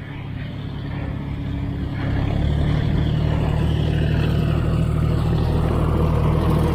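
An engine running steadily with a constant hum, growing louder about two and a half seconds in and then holding.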